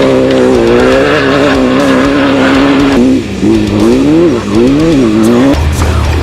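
Class 10 off-road race buggy engine running hard at a steady high pitch, then revving up and down several times as the throttle is lifted and reapplied. Near the end the engine sound cuts off and a deep steady hum takes over.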